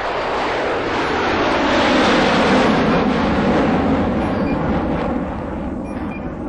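An aircraft passing overhead: a loud rushing noise that swells over the first two seconds or so and then slowly fades.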